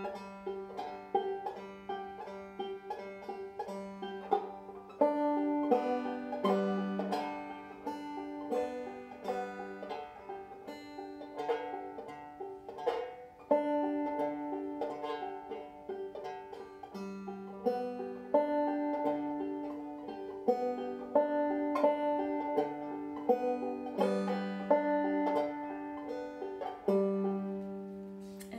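Deering Goodtime open-back banjo played clawhammer style at a slow, steady pace: a beginner's exercise of struck single notes and strums in an even rhythm, each note with a crisp pick attack.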